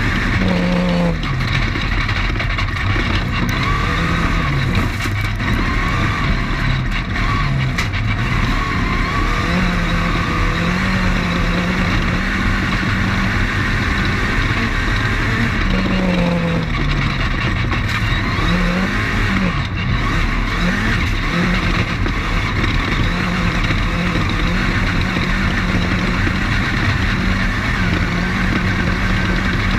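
Off-road race car's engine running hard at race pace, heard on board; its revs rise and dip repeatedly with throttle and gear changes over loud, steady road and wind noise.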